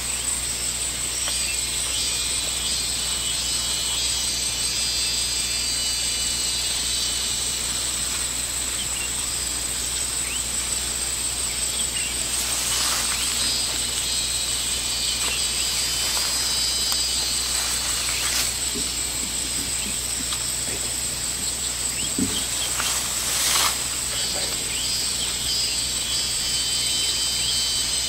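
Insect chorus droning steadily at a high pitch in open grassland, with a few brief rustles in the second half.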